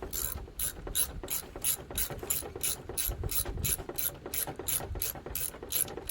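Hand socket ratchet clicking steadily, about three clicks a second, as it drives in a 10 mm bolt; the clicking stops near the end.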